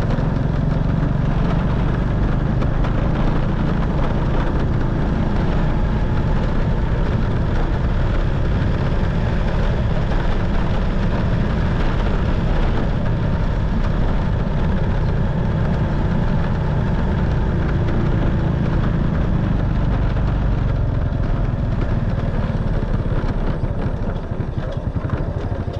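Motorcycle engine running steadily, heard from the bike as it rides along, with road and wind rush. Near the end the engine eases off and gets quieter, breaking into a slower pulsing beat.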